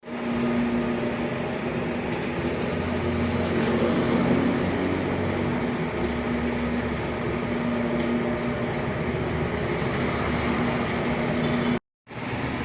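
Engine of a piece of road-construction machinery running steadily, with an even hum and a held low tone.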